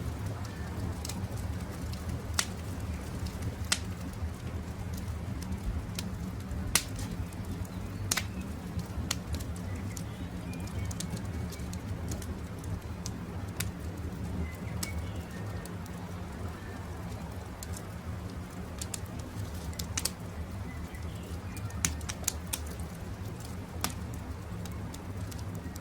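Campfire crackling with sharp, irregular pops over a steady low rumble, while birds call faintly now and then.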